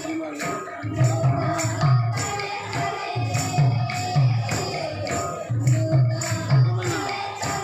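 Folk kirtan music: drum strokes and jingling metal percussion keep a steady, repeating rhythm under a singing voice.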